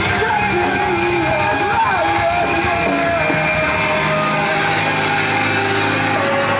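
A post-hardcore band playing live: loud, dense rock with a wavering sung vocal line over the band for about the first three and a half seconds, then held, ringing chords with the deep bass dropping away.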